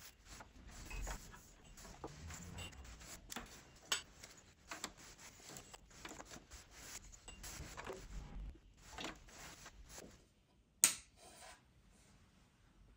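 Hands handling machine parts during assembly: scattered small clicks, knocks and rubbing, with one sharp click near the end the loudest.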